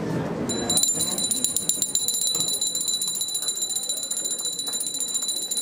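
Small handheld puja bell rung rapidly and without a break, starting about half a second in, as part of the worship ritual.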